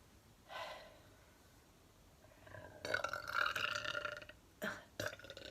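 A woman burping: a short burp about half a second in, then a long, loud burp lasting about two seconds, followed by two brief sharp sounds near the end.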